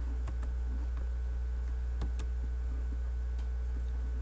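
A steady low hum in the recording, with a few faint, separate computer mouse clicks.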